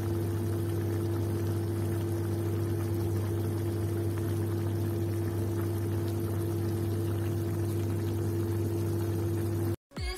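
A pot of chicken and green beans boiling, the broth bubbling steadily over a constant low hum. It cuts off suddenly near the end as music begins.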